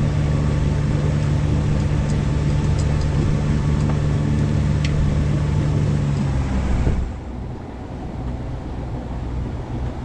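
Sailboat's inboard diesel engine running steadily, then cutting out about seven seconds in, leaving the softer rush of wind and water past the hull: the engine is shut down so the boat can sail under canvas alone.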